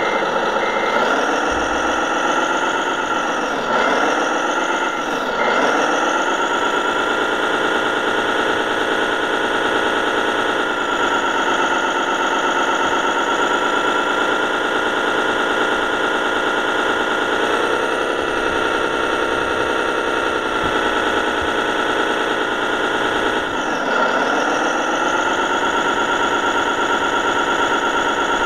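Simulated diesel truck engine from a radio-controlled model truck's sound module, running steadily. The pitch dips and climbs again as it revs or shifts, a few seconds in and again near the end. A few short beeps sound near the start and about four seconds in.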